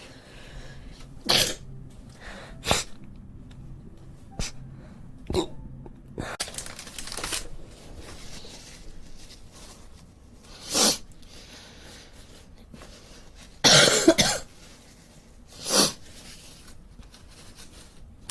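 A woman sneezing wetly again and again from allergies, with several sharp sneezes spread apart. The loudest and longest comes about fourteen seconds in.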